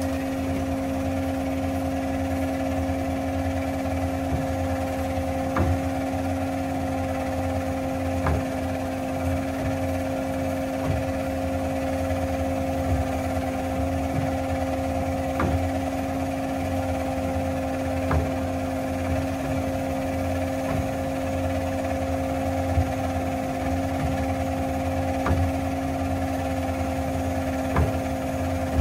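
Hyd-Mech S-20A Series II horizontal bandsaw running in its automatic cycle: a steady hum from its motor, hydraulics and blade, with a light tick every two to three seconds.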